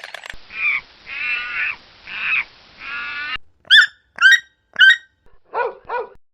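A string of animal calls spliced from separate clips: four wavering calls, then three short sharp caw-like calls about half a second apart, then two lower, shorter calls.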